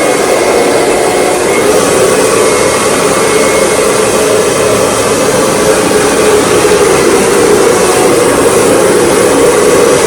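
Hair dryer running loud and steady, blowing on wet, freshly washed hair.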